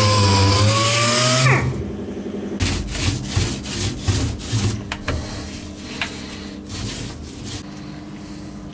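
Air-powered orbital sander running on a metal panel, its whine dipping and rising under load, then winding down and stopping about a second and a half in. After that come quieter rubbing strokes and light knocks of a paintbrush working paint inside a metal compartment.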